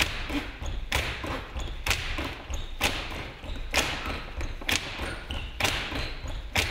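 Steady rhythmic percussive hits, one sharp hit a little faster than once a second, each with a short ringing tail, over a low rumble.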